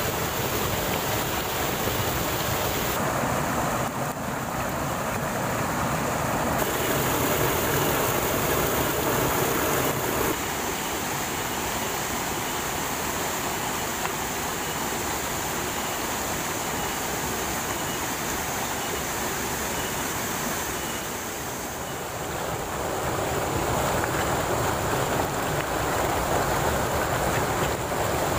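Stream water rushing and splashing as it cascades over boulders in small falls: a steady, full rush whose tone shifts abruptly a few times.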